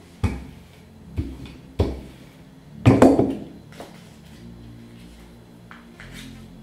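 Wooden rolling pin knocking on the table while dough is rolled out: a few sharp knocks, then a louder clatter about three seconds in as the pin is set down.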